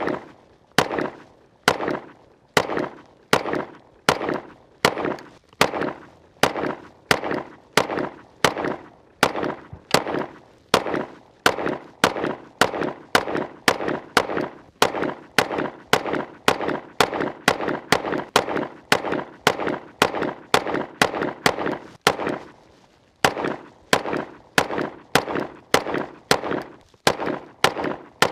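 Les Baer Gunsite 1911 pistol firing .45 ACP in a long string of shots at a steady pace, about one every half-second or so, each shot trailing off in a short echo. The firing breaks off for about a second roughly three quarters of the way through, then resumes.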